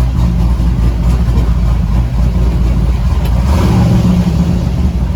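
Twin-turbo destroked 6-litre LS V8 in a 1957 Chevy pickup running steadily as the truck sets off on a test drive. There is a brief rush of noise about three and a half seconds in.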